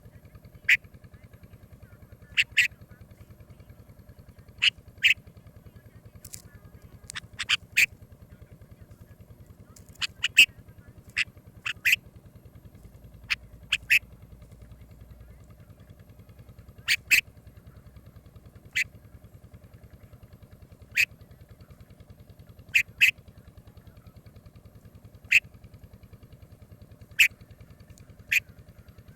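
Bulbul giving short, sharp single or paired call notes, repeated every second or two, over a steady low hum.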